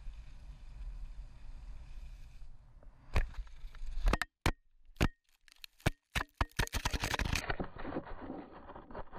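Wind rumbling on a body-worn action camera's microphone as skis slide over groomed snow, then a fall: a heavy thud about three seconds in, followed by a run of sharp knocks and clatter as the skier and gear hit the snow. A duller, muffled rustling follows near the end.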